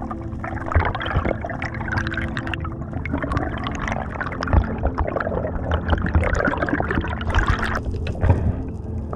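Water sounds heard through a submerged camera: continuous bubbling and crackling, with a faint steady low hum underneath.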